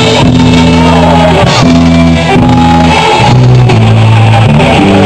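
Live rock band playing loudly, with guitar and bass holding chords that change every second or so.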